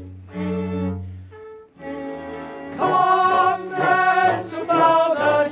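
Live operetta music: an orchestra plays held string chords in short pulses. About three seconds in, a chorus starts singing loudly with vibrato over the orchestra.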